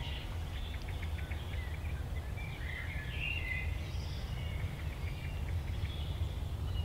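Small birds chirping and singing on and off over a steady low rumble.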